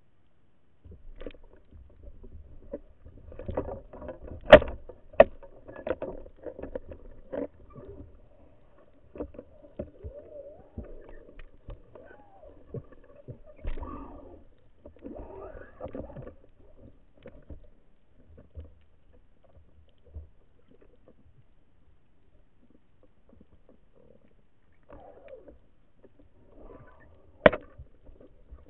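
Muffled water sounds heard through an underwater action camera's housing as a spearfisher moves with a band-powered speargun: irregular splashing and bubbling with scattered knocks and clicks. It starts about a second in, and the sharpest knocks come about four and a half seconds in and near the end.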